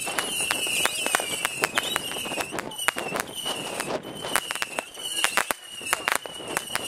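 New Year's Eve firecrackers and fireworks going off: a dense, irregular run of sharp bangs and cracks, with short high whistles that recur about twice a second.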